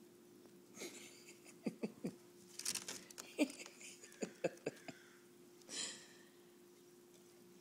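A dog and a kitten moving about right at the microphone: scattered soft taps and scuffs, with three short breathy puffs, over a faint steady hum.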